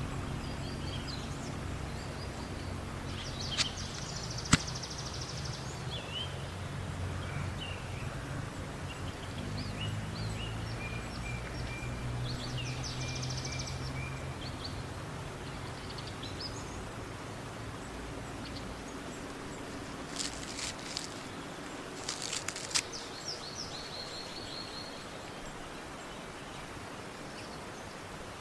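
Wild birds calling off and on against steady outdoor background noise, with a low steady hum that fades away about two-thirds of the way through. A few sharp clicks or snaps come about four seconds in and again near the end.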